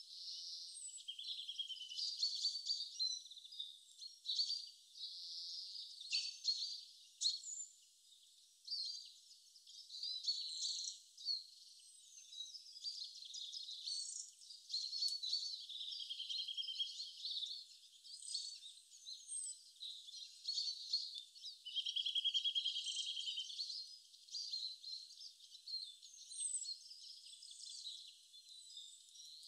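Many small birds chirping and trilling in a busy, unbroken chorus, thin and high-pitched with nothing low underneath. Several rapid trills stand out, the longest about three-quarters of the way through.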